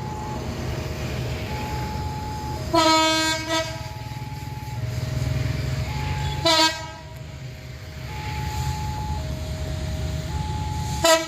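Indonesian diesel locomotive's air horn sounding the Semboyan 35 horn signal: one blast of just under a second, then two short blasts about 4 s apart, over the steady low rumble of the train. A two-note electronic warning tone alternates about once a second throughout, as a level-crossing alarm does.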